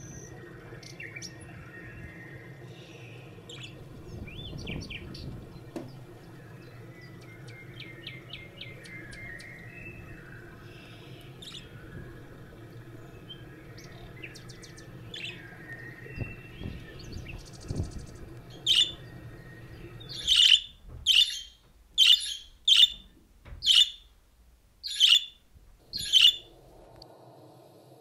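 Small birds chirping and tweeting at intervals over a steady low background hum. Near the end comes a run of about eight loud, sharp chirps, roughly one every three-quarters of a second.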